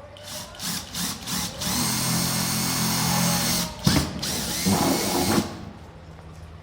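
Power drill run in a few short bursts, then steadily for about two seconds, with a sharp knock about four seconds in and one more short burst. It is boring into a plastic storage case to take a valve fitting.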